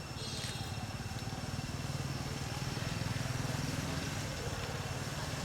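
A motor vehicle engine running nearby with a low rumble, growing louder over the first few seconds and then holding steady.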